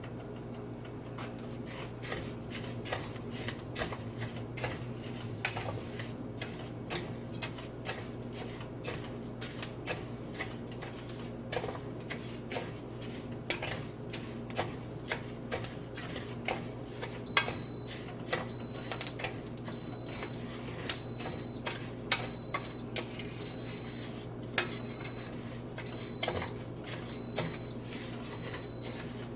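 Dry rice frying in hot oil in a pot while it is stirred: irregular crackling ticks and clicks of grains and utensil against the pot, over a steady low hum. A faint high beep repeats about once a second in the second half.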